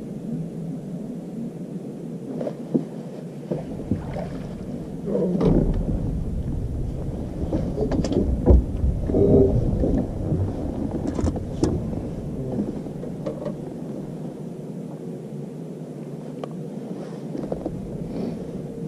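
Wind rumbling on an outdoor action-camera microphone, heavier for several seconds in the middle, with scattered knocks and scuffs from a person moving on a boat deck.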